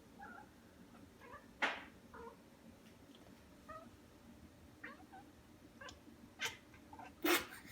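Domestic cat making a string of short, odd meow-like calls, with three louder, sharper calls: one about a second and a half in and two near the end.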